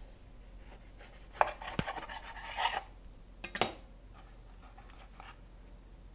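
Kitchen knife sawing through a toasted grilled cheese sandwich on a cutting board: crisp crunching and scraping of the toasted bread crust for a couple of seconds, then a single sharp knock a little after three seconds, followed by faint rustling.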